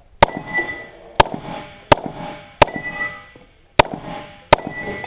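Six pistol shots fired at uneven spacing, the shots at about a second apart with a longer gap before the last two, each followed by a ringing tone: steel targets ringing when hit.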